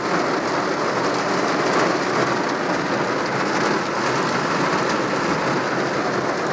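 Heavy rain falling on a car's roof and windshield, heard from inside the cabin as a steady, dense patter of drops.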